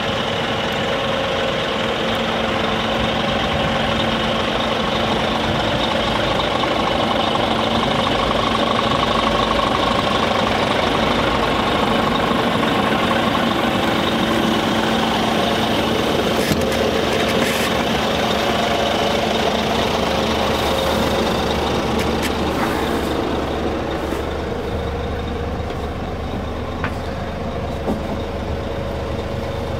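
Scania R400 truck's diesel engine idling steadily, with a few faint clicks near the end.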